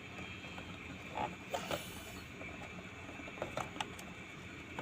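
Faint, scattered clicks and taps of small plastic and metal parts being handled as an NIBP solenoid valve assembly is fitted back into a patient monitor.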